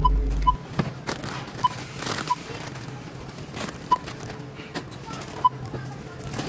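Self-checkout barcode scanner beeping as items are scanned: six short, identical beeps at uneven intervals. Between them come the knocks and rustle of packages, including a bag of chips, being handled on the scanner.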